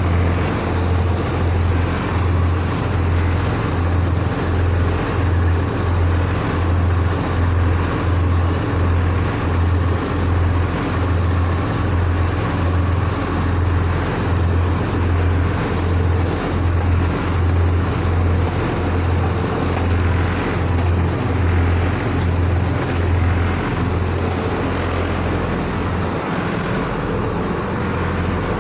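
Excavator's diesel engine running with a heavy low throb, pulsing about twice a second, that settles into a steady drone near the end.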